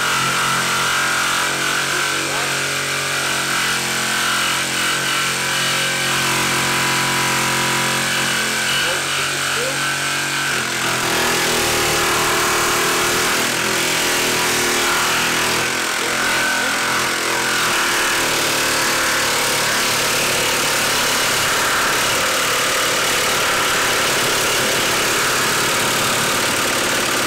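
Ryobi 18V brushless jigsaw running under load, its reciprocating blade sawing through a wooden 2x4. The motor note is steady for the first ten seconds or so, then turns rougher and noisier about eleven seconds in as the cut goes on.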